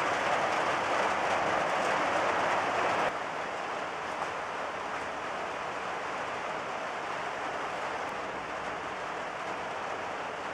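Heavy thunderstorm rain falling in a steady hiss. About three seconds in it drops suddenly to a quieter, still steady level.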